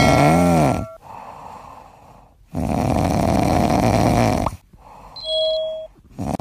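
Cat sleeping on its back snoring: long, noisy snores of about two seconds each, with quieter breathing between them. A bouncing, springy sound-effect tone plays over the first snore, and a short steady tone comes about five seconds in.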